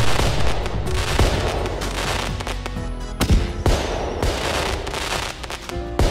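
Fireworks bursting over background music: several sharp bangs, near the start, about a second in and a pair past the three-second mark, each followed by crackling.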